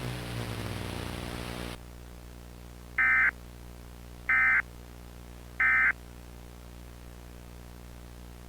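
Emergency Alert System end-of-message data tones: three short, identical warbling digital bursts about 1.4 seconds apart, marking the end of the alert. A faint steady hum and hiss sit under them, the hiss dropping away after the first two seconds.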